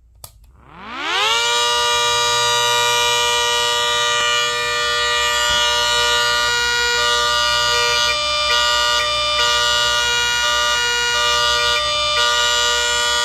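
Half-scale 3D-printed ACA Hurricane MKII siren chopper, driven by its electric motor, winding up within about a second to a loud, steady wail of several tones at once. There are a few brief dips in the tone in the second half.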